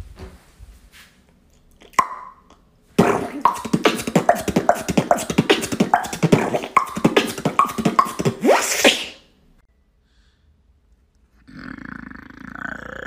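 Fast human beatboxing: a dense run of mouth-made clicks, kick- and snare-like hits and short pitched sounds from about three seconds in to about nine, ending on a rising sweep. A rough, raspy vocal sound starts about a second and a half before the end.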